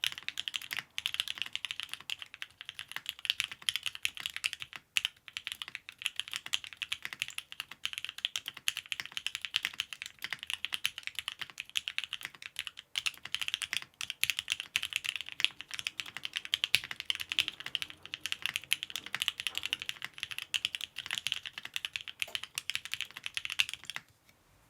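Fast, continuous typing on a Bakeneko 65 mechanical keyboard with lubed Durock L7 linear switches in an aluminum plate under GMK keycaps: a steady stream of keystroke clacks with a couple of short pauses, stopping shortly before the end.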